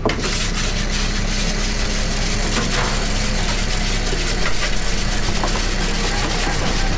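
Crab workboat's engine running steadily under a constant hiss, with scattered knocks and rattles from wire crab pots being handled at the rail.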